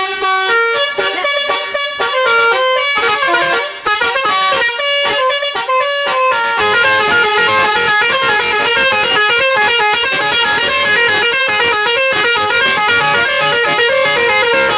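Six-trumpet basuri telolet horn on a car playing a fast tune of short, loud horn notes, the pitch jumping from note to note with hardly a break.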